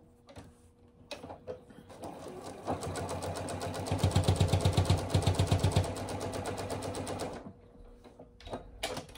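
Electric home sewing machine stitching through a folded, multi-layer fabric face mask. It starts about a second in, speeds up to a fast, even needle beat that is loudest in the middle, then slows and stops near the end, followed by a few light clicks.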